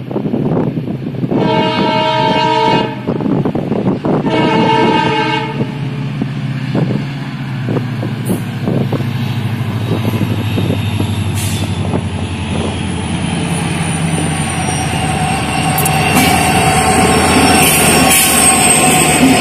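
Indian Railways diesel freight locomotive sounding its horn in two blasts of about a second and a half each, a couple of seconds apart, then its engine rumbling louder as it approaches and passes, hauling a double-stack container train.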